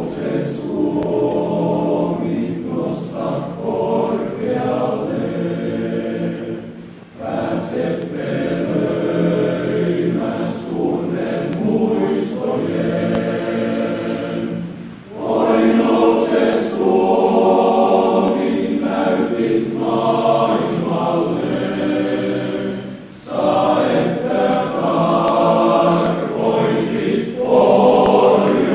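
Male choir singing a sustained, chordal song in long phrases, with brief breaks between phrases about every eight seconds.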